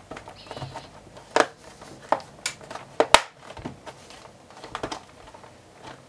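Rear cover of an all-in-one PC being pressed down so its snap-in clips click into place: an irregular run of sharp clicks and taps, the loudest about one and a half and three seconds in.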